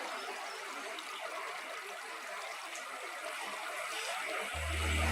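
Water trickling and splashing in a small garden water feature, a steady hiss. Near the end, background music with low held notes fades in.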